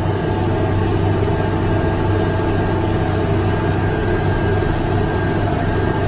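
Case IH Steiger 540-horsepower tractor running steadily under load, pulling a speed disc, heard from inside the cab: a deep, even engine hum with a faint high whine above it.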